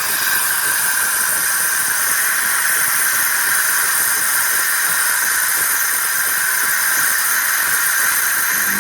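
Philips LatteGo 3200 automatic coffee machine hissing steadily with steam while it makes a drink.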